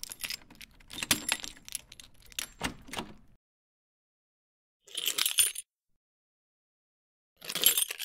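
A bunch of metal keys on a ring jangling and clinking: a run of clinks for the first three seconds or so, then two short jangles, one about five seconds in and one near the end, with silence between.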